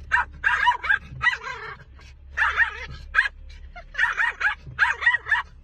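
A dog barking and yipping in quick runs of short, pitch-bending calls, over and over, the way a dog protests or complains.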